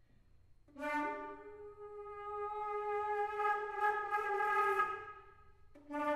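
Amplified flute sounding a long, breathy held note that slides up briefly at its start, then a new note entering near the end.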